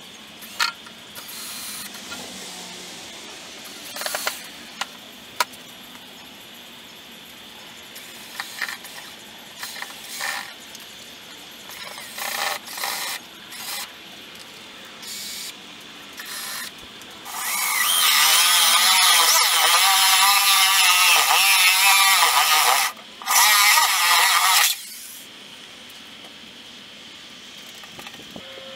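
Cordless drill driven in short bursts, with clicks and knocks of work on a cast-iron stand and its wooden top. About two-thirds of the way in, a power tool runs loud for about five seconds with a wavering whine, stops briefly, then runs again for a second or two.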